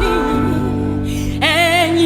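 Gospel worship song in Yoruba, a voice holding a sung line over keyboard-and-guitar backing with sustained chords; a new sung phrase comes in near the end.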